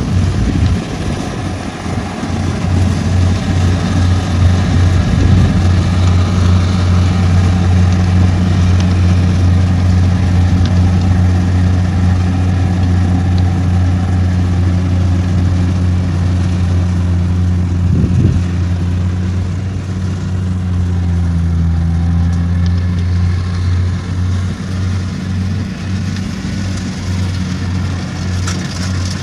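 Kubota DC-93 rice combine harvester's diesel engine running steadily while it cuts and threshes rice, a deep steady hum with a brief dip in pitch about two-thirds of the way through.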